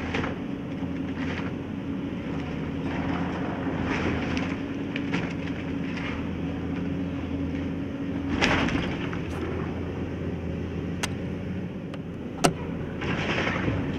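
Engine idling steadily, with brief rushes of noise every few seconds and two sharp clicks late on, the second of them the loudest sound.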